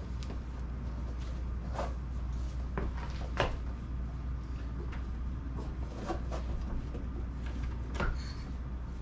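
Handling noises: about five short knocks and clunks spread through, the loudest about three and a half seconds in, over a steady low hum.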